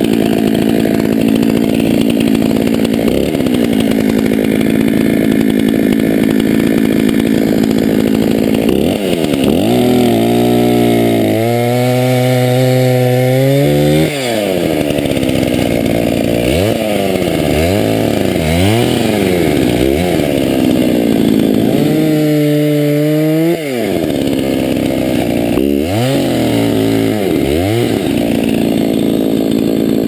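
Two-stroke chainsaw cutting through a fallen tree trunk. The engine holds a steady high note at first, then from about a third of the way in its pitch repeatedly drops and winds back up as the cut goes on.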